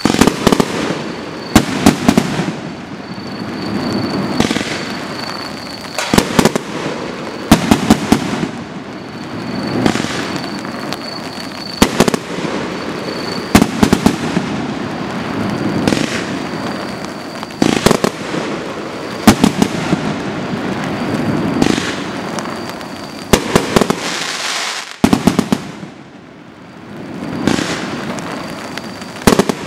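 A 100-shot square fireworks cake firing in sequence: sharp reports, often in close pairs, about every one and a half to two seconds, with a low rumble between them. There is a brief lull in the firing near the end.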